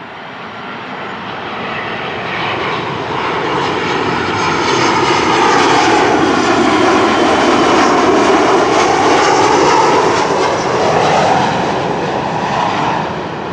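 Boeing 737 jet airliner on final approach with landing gear down, passing low overhead: the engine noise swells to a loud peak about halfway through, with tones that bend in pitch, then fades as the jet moves away.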